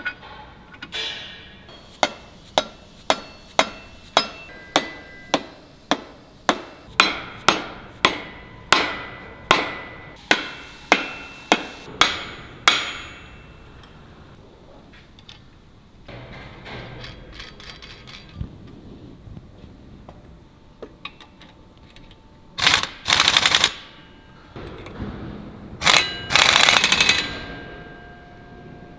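Hammer blows on steel parts of an excavator tiltrotator, about twenty ringing metallic strikes at roughly two a second, most likely driving a steel pin into its bore. Later, two short rattling bursts of a second or two each.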